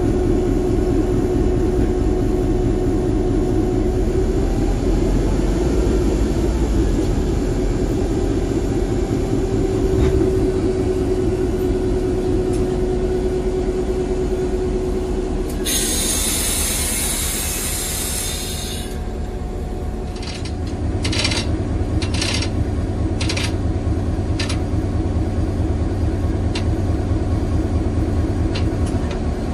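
CF7 diesel locomotive's engine running steadily, heard from inside the cab as a constant drone. About halfway a loud hiss of air lasts some three seconds, and a few sharp clanks follow in the last third.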